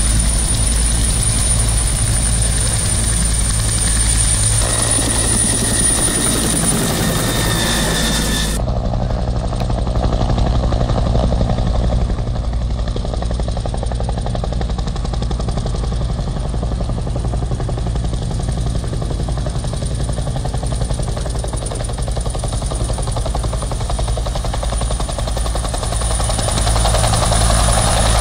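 Helicopter running close by: a steady pulsing rotor beat with a high, steady turbine whine above it. The sound changes abruptly about eight seconds in.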